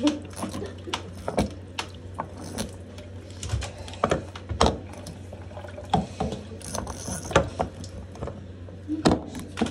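Irregular metallic clicks and knocks from a handheld shower head and its metal hose being handled against the faucet, right at the microphone, over a steady low hum.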